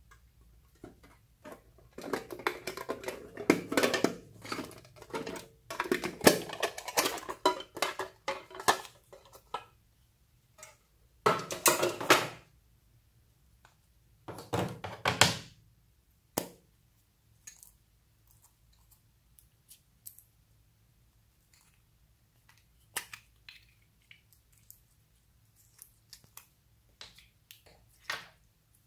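Slime being squished and worked by hand: clusters of sticky clicks, crackles and pops, busiest for several seconds near the start, with two louder bursts in the middle and then only scattered faint clicks.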